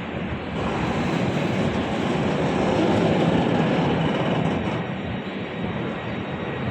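A train passing at speed, its wheels making a steady rumble on the rails that grows louder about two to four seconds in and eases off toward the end.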